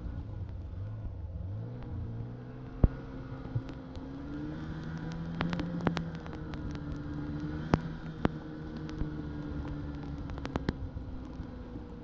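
Snowmobile engine running at low to moderate speed, its pitch rising and falling as the throttle changes. Several sharp clicks or knocks sound over it, the loudest about three seconds in.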